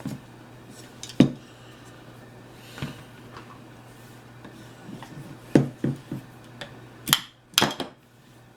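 Irregular sharp clicks and light knocks of a revolver's grip panels being pried and worked loose from the frame, where they sit tight on their locating pins; the loudest knocks come in the last couple of seconds. A faint steady hum runs beneath.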